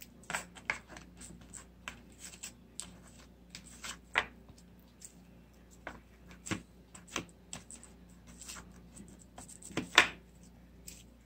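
Slime being mixed with pigment by hand: irregular small clicks and pops, the loudest near the end.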